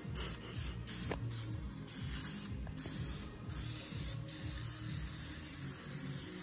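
Aerosol spray adhesive hissing as glue is sprayed on for the traction mats, in long bursts broken by a few brief pauses.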